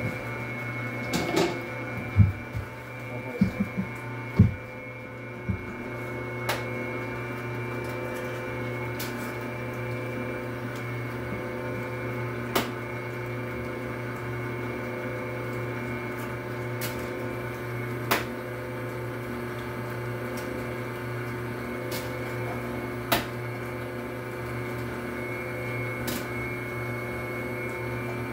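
Electric dough mixer running steadily with a steady hum, the bowl not yet loaded with flour. A few sharp knocks come in the first five seconds, then single clicks every few seconds.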